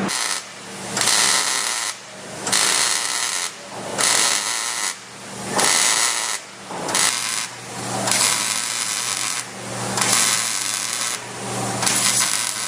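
MIG welder tacking and welding steel subframe connector plates, the arc crackling and hissing in bursts of about a second with short breaks between, some ten times over.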